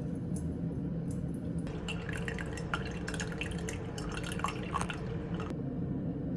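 Liquid trickling and dripping, with small splashes and drops for about four seconds before stopping suddenly, over a steady low hum.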